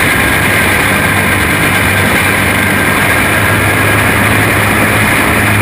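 A racing kart's small flathead engine running steadily at racing speed, heard from onboard the kart with wind and road noise over the microphone.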